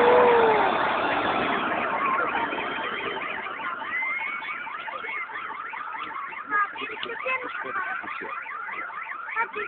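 The echo of a large fireworks shell burst dies away over the first couple of seconds, while several car alarms wail with fast, repeating rising and falling tones.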